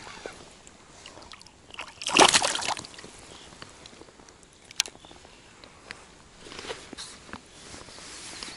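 A small hooked fish thrashing and splashing at the water surface beside an inflatable raft as it is reeled in, with one loud splash about two seconds in and a few smaller splashes later.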